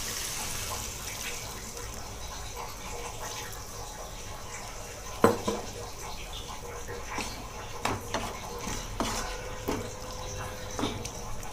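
Water poured into a pan of frying cauliflower masala, a hiss that fades over the first couple of seconds. Then a wooden spatula stirring the curry in the non-stick pan, with scattered knocks against the pan, the loudest about five seconds in.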